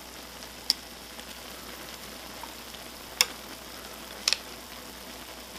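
Steady sizzling hiss of water heating in a metal pot on a tabletop burner, with dry ramen noodles soaking in it. Three sharp clicks of chopsticks against the pot: under a second in, about three seconds in, and a quick double just after four seconds.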